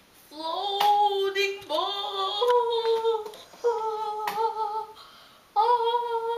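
A child's voice singing wordless, long held high notes in four drawn-out phrases with short breaks between them.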